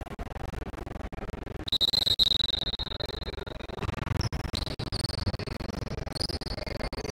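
Referee's whistle blown in one long blast of about two seconds, the signal that stops play, over the hubbub of a gymnasium. Fainter, slightly higher thin tones come and go through the second half.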